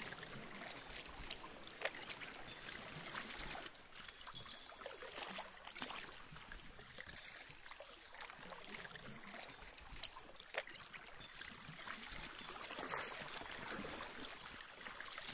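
Faint water lapping and trickling against the hull of a small boat moving over calm sea, with a few scattered small splashes.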